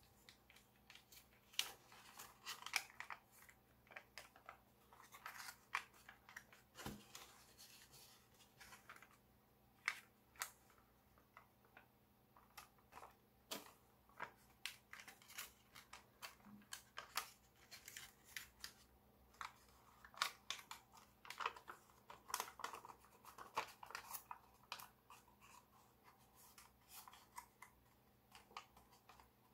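Faint handling of a sheet of gold foil-backed origami paper as it is folded, unfolded and creased by hand: scattered rustles and short sharp crackles, busier after about 20 seconds.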